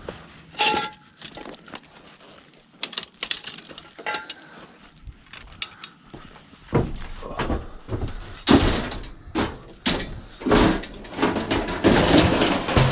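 Metal pots and pans clanking as they are handled, with a ringing clang about a second in. Louder, busier clattering and rustling in the second half.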